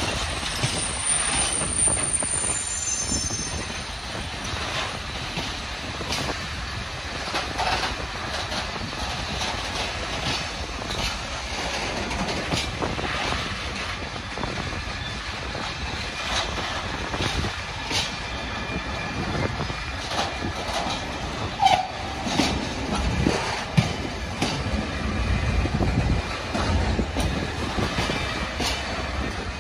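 Container freight train's flat wagons rolling past at close range: a steady rumble and rattle, with irregular wheel clicks over the rail joints. The low rumble grows heavier in the last several seconds.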